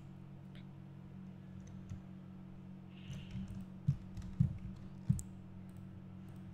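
Computer mouse and keyboard clicks: a few sharp clicks, the three loudest between about four and five seconds in, over a steady low hum.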